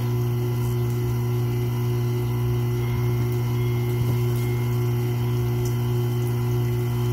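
Tormek wet sharpening machine running with no tool on the stone: a steady, unchanging low motor hum.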